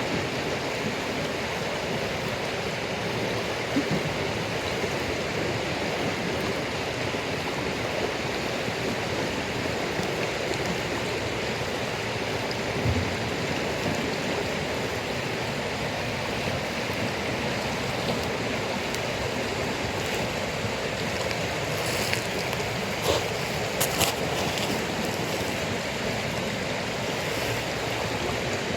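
Steady rush of running water, with a few sharp snaps from a wood fire, clustered near the end.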